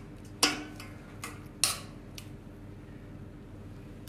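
Metal spoon clinking against a stainless steel saucepan of rhubarb compote: two sharp clinks about a second apart, with a couple of fainter taps.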